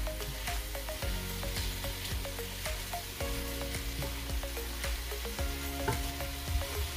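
Chicken pieces with lemongrass sizzling as they sauté in a stainless steel pot, stirred with a wooden spatula that scrapes and knocks against the pot in frequent short clicks.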